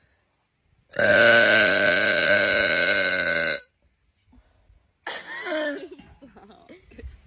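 A person's single long, loud burp, sustained for over two seconds with a steady pitch, followed about five seconds in by softer, shorter sounds.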